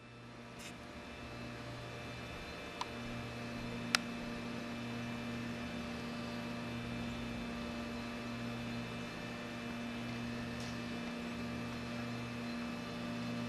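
Steady low electrical hum with faint hiss, the room tone of a quiet dim room, with two faint clicks about three and four seconds in.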